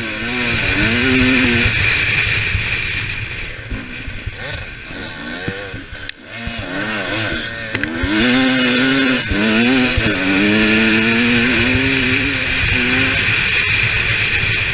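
Dirt bike engine, heard from the rider's helmet camera, revving up and down repeatedly as the bike accelerates and shifts at race pace, easing off briefly about six seconds in. A steady rush of wind on the microphone runs under it.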